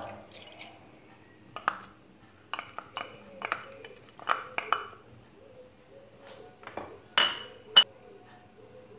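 A glass bowl and a wooden spoon knocking and clinking against each other and a stainless steel pot as the last of the rice is scraped out of the bowl: a string of sharp clinks and knocks, the loudest a ringing clink near the end.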